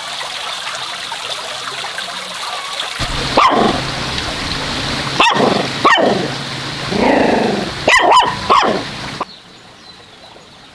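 A dog barking: about six short, sharp barks spread over several seconds, with one longer drawn-out call among them. The barking stops about nine seconds in and only quieter outdoor background remains.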